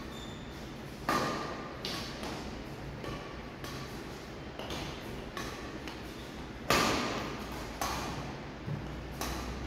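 Badminton racket striking shuttlecocks overhead again and again: sharp hits with a brief ring, roughly one a second, echoing in a large hall; the loudest comes near the end.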